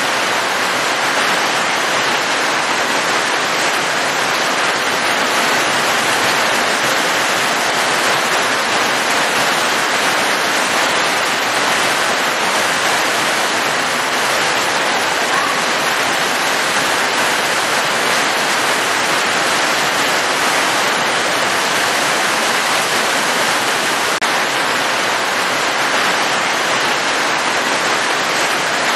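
Steady rain falling, a dense even hiss that never lets up.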